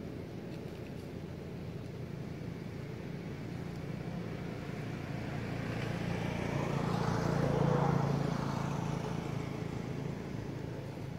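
A motor vehicle driving past: its engine hum grows louder over several seconds, is loudest about two-thirds of the way through, then fades away.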